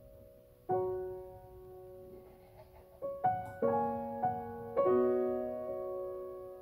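Background piano music: slow single notes and chords that ring out and fade.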